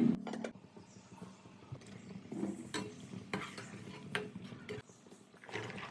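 A utensil stirring in a cooking pot, scraping and clinking against it with a few sharp knocks. The tail of a cat's meow cuts off at the very start.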